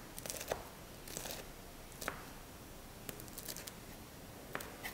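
Faint handling noises from preparing ingredients on a kitchen worktop: a few short clicks and crinkly rustles about a second apart.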